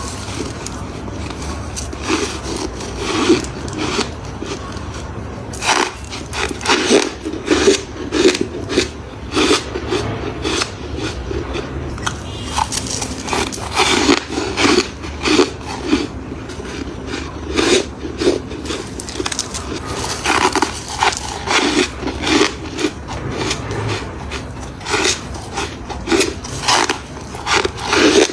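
Freezer frost being bitten and chewed close to the microphone: many irregular sharp crunches over steady grinding chewing.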